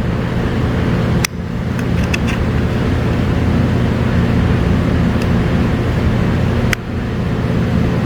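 A steady low mechanical hum with no speech over it, broken by two brief sudden dropouts, one about a second in and one near the end.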